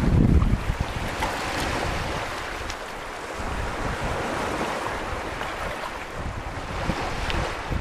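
Small Baltic Sea waves washing in and out over a pebble beach, water lapping among the stones, with wind rumbling on the microphone in the first moment.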